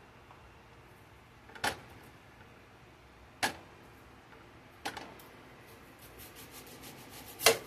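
Knife blade clicking on a dinner plate as an onion is sliced into rings: single sharp clicks about every second and a half, then a quick run of light taps near the end and one louder click.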